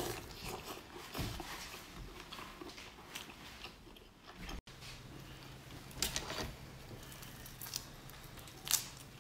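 Close-up eating sounds: biting and chewing a sauce-coated piece of crab or lobster shellfish, wet and crackly. After a cut about halfway through, a raw prawn's shell is twisted and snapped apart by hand, giving a few sharp cracks, the loudest near the end.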